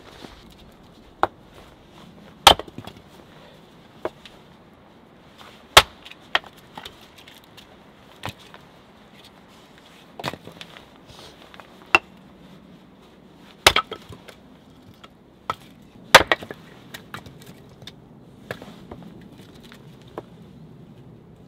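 Small axe splitting kindling on a wooden chopping block: sharp, irregular wooden chops and knocks, roughly one every second or two, a few much louder than the rest.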